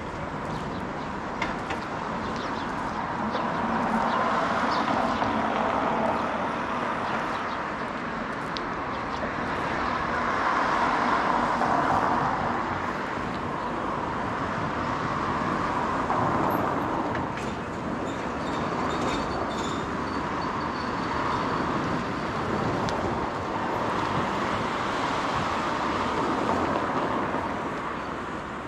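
Road traffic: vehicles passing one after another, their tyre and engine noise swelling and fading every few seconds.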